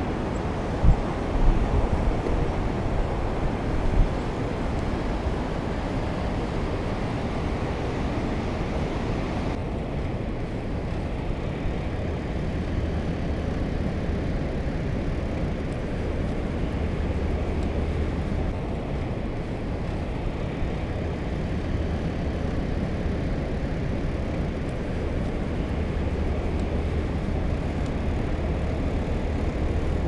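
Steady rush of wind buffeting the microphone while riding a fatbike along a beach, with tyre and ride rumble underneath and a few sharp knocks in the first few seconds.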